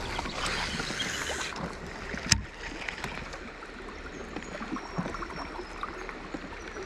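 River water running and trickling around a drifting raft, with one sharp click or knock a little over two seconds in.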